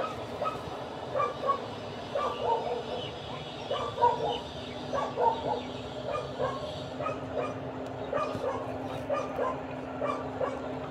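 A dog whimpering and yipping in short, high cries that come over and over, about two a second.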